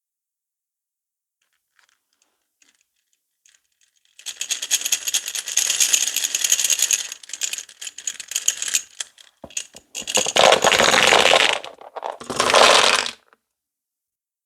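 Hard-shelled candies being poured and rattling against each other and a container, starting about four seconds in and going in three bursts, the last short and loud.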